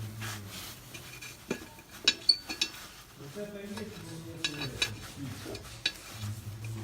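Light metallic clicks and clinks of tools and fittings being handled, with the sharpest taps about two seconds in, while the gauge adapter is fitted into the lambda-sensor port of the exhaust. A low steady hum runs underneath.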